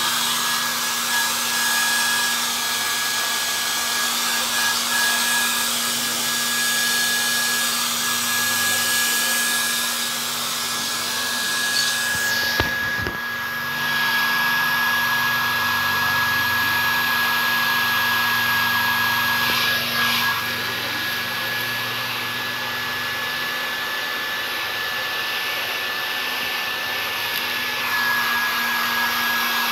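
Hair dryer running steadily, a steady high whine over its blowing hiss, with a sharp click and a brief change in its sound about halfway through.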